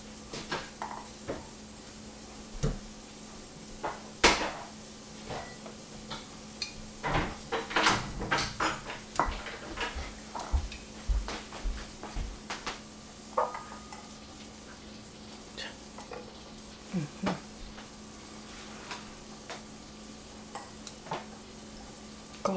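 Kitchen scissors snipping rosemary sprigs, which are dropped into glass jars of olives: scattered short, sharp snips and clicks with light clinks of glass, busiest around eight seconds in. A faint steady low hum runs underneath.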